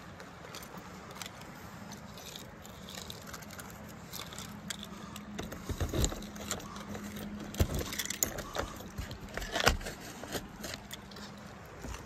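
Handling noise from a handheld phone being moved around: rustling and scraping against clothing, with irregular clicks and a few heavier thumps, busiest around the middle, over a faint steady hum and background rush.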